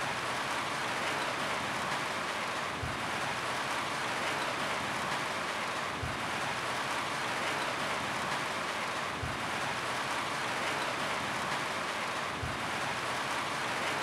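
Steady rain falling on a roof, an even hiss of drops, with a short low thud repeating about every three seconds.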